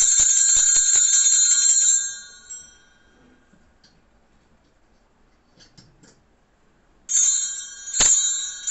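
Altar bell shaken rapidly for the elevation of the chalice after the consecration, ringing for about two seconds before fading out. It rings again about seven seconds in, with a louder strike a second later.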